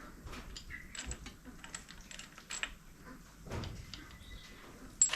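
Light metallic clicks and clinks at an uneven pace, from hand tools and engine parts being handled during an engine teardown, with a duller knock about three and a half seconds in.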